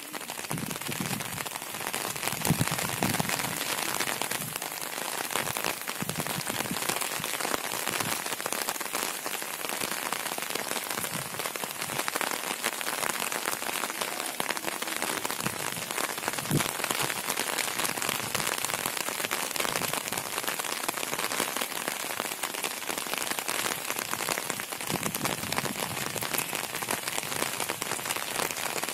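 Steady rain falling, a dense even patter of drops hitting surfaces, with a few soft low thumps here and there.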